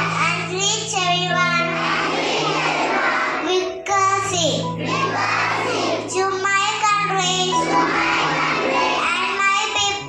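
Group of young children singing a song together in unison, over held instrument notes that change every second or two.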